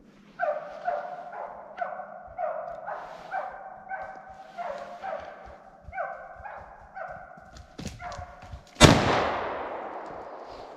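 A hunting dog baying in short, steady barks, about two a second. Near the end a single loud shotgun shot goes off, and its echo fades away over about two seconds.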